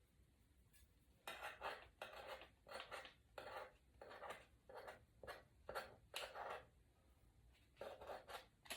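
Faint scraping of a blade along the edge of an iPad, taking off excess digitizer glue: a series of short strokes, about two a second, stopping briefly about seven seconds in and then starting again.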